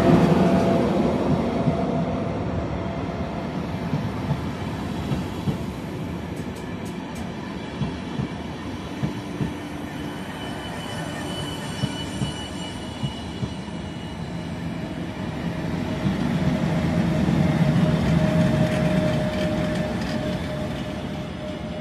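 ÖBB passenger train with a class 1144 electric locomotive rolling slowly past: a steady rumble of wheels on rail, with sharp clicks as the wheels cross rail joints and points and a thin squeal from the wheels. The rumble swells again near the end as the locomotive goes by.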